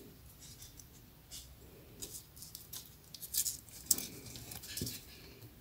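Faint, scattered rustles and crackles of rolled newspaper tubes handled by fingers: the woven paper rose being turned and its tube ends pressed and bent.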